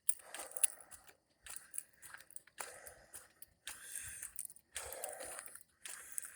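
Footsteps crunching on loose gravel and dirt, about one step a second.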